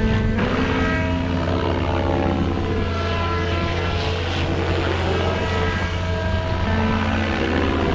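Kraken 580 RC helicopter in flight: a steady rotor hum with a motor whine whose pitch slides up and down as it manoeuvres.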